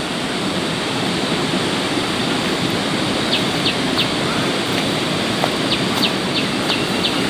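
Steady heavy rain falling, an even rushing hiss. From about three seconds in, a bird gives short high peeps in quick runs of three or four, about three a second.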